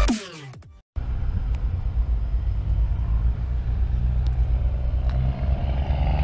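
Electronic music cuts off in the first second. A steady low engine rumble with an even hum then follows.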